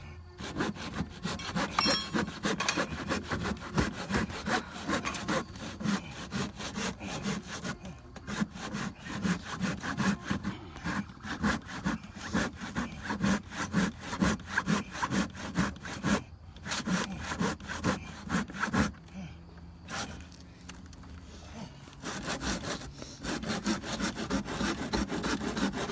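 A saw cutting through wood in quick, repeated strokes, pausing briefly a few seconds before the end and then starting again.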